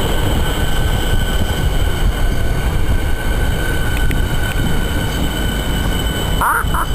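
Siemens electric suburban train pulling into a station: a steady low rumble of the moving train with a steady high-pitched tone above it. Near the end a quick run of short repeated tones begins.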